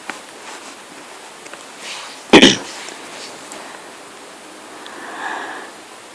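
Steady hiss with one short, very loud burst of noise about two seconds in, and a softer, shorter sound near the end.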